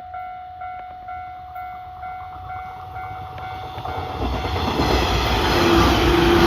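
Level crossing warning bell ringing about twice a second, then a train approaching. Its rumble grows louder from about four seconds in and drowns out the bell.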